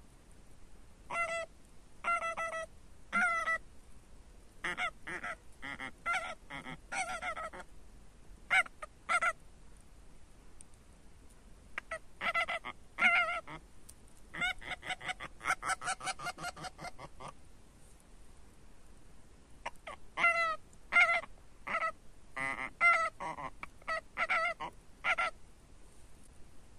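Mouth-blown goose call (wind-type goose call) sounding series of goose honks in bursts separated by pauses, with a quick run of short honks about midway.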